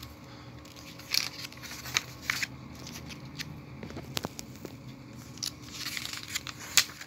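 Glossy magazine pages being turned and handled, a string of short papery rustles, swishes and crinkles.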